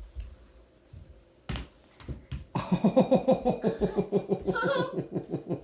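A sharp knock about a second and a half in, then a few seconds of quick, rapidly pulsing laughter.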